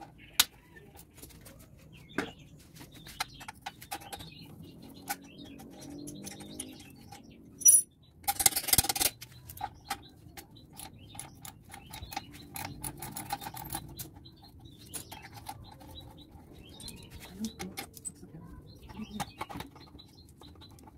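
Scattered metallic clicks and clinks of a hand tool loosening the clamp and mounting bolts of a slip-on exhaust muffler on a Honda CBR250R, with a loud burst of noise lasting about a second near the middle. Birds chirp faintly in the background.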